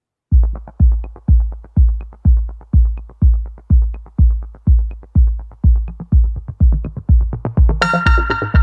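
Electronic music: a steady deep kick drum about twice a second, with bright synth chords coming in near the end.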